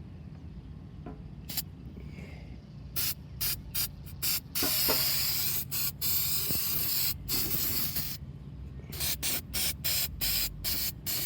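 Aerosol spray can hissing in a series of short bursts, with one longer spray of a few seconds near the middle. It is being sprayed while a transmission pan is cleaned out.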